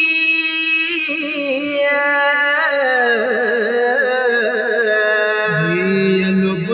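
Male voice singing a Pashto noha: a long held note, then a slow, wavering melodic run that falls in pitch, settling on a lower held note near the end.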